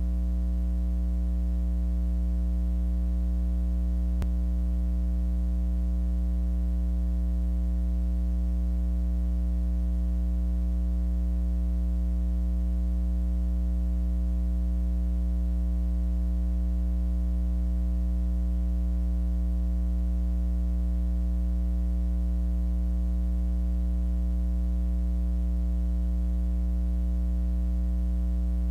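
Steady electrical mains hum: a low, unchanging buzz with a stack of higher overtones.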